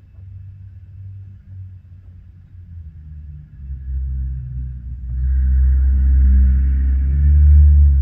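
A low rumble that builds from about halfway through and is loudest near the end, with a faint hiss above it during the loudest part.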